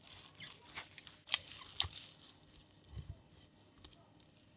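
Hands kneading and squeezing spiced raw chicken mince in a glass bowl: irregular wet squishes and sharp little clicks, busiest in the first two seconds, then a soft thud and quieter towards the end.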